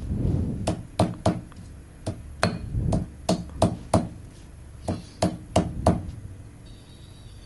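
Stone pestle grinding spice paste in a stone mortar (Indonesian cobek and ulekan): a rough scraping grind, then about a dozen sharp stone-on-stone knocks as whole shallots are crushed into the chili paste. The knocking stops about six seconds in.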